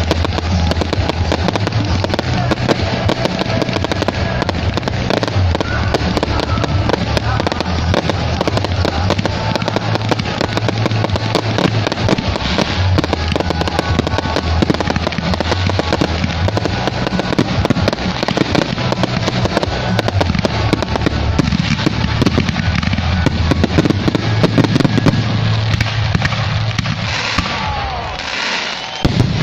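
A fireworks barrage: a dense, unbroken run of bangs and crackling from aerial bursts and ground fountains, easing off shortly before the end.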